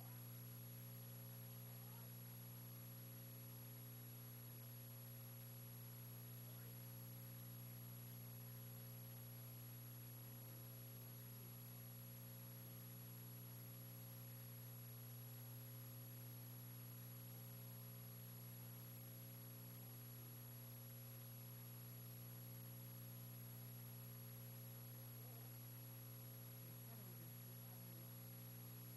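Near silence: a steady low electrical hum with a faint hiss and a thin high whine, unchanging throughout.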